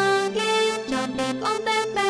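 Instrumental backing music for a children's song: a melody of held notes with a few notes that slide upward, no singing.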